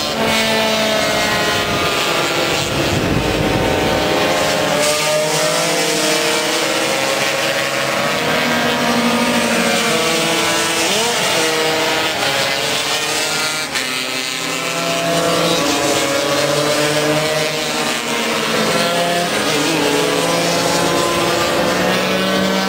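Several two-stroke racing scooter engines at high revs, overlapping, their pitch rising and falling as the riders accelerate and back off through the corners.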